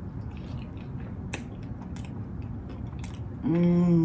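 Close-mic mouth sounds of chewing a bite of egg roll, with small wet clicks. Near the end, a loud closed-mouth "mmm" hum of enjoyment, held steady for under a second.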